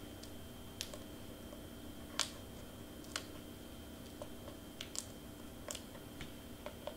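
Scattered faint clicks and crinkles of hands handling a small cardstock bat cut-out and foam tape on a cutting mat, with the sharpest click about two seconds in.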